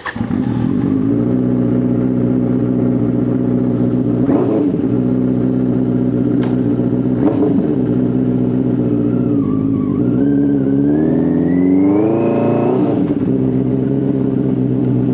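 Benelli TNT 600's inline-four engine with its dual exhaust starts up and idles loudly. The throttle is blipped twice, and then the revs climb for a couple of seconds before dropping back to idle.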